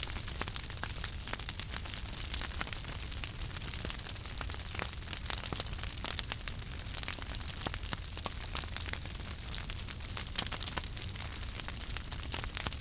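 Fire crackling, with frequent irregular sharp snaps and pops over a steady hiss and low rumble.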